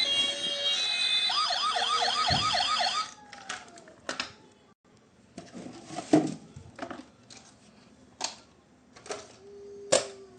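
Toy electronic siren: a steady electronic tone that turns, about a second in, into a fast yelping siren sweeping up and down about four times a second, cutting off about three seconds in. After it come scattered clicks and knocks of a plastic toy being handled.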